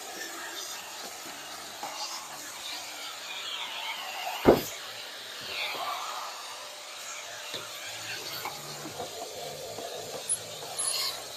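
Canister vacuum cleaner running as its hose cleans a car's interior, a steady hiss. A car door is shut with a single loud thud about four and a half seconds in.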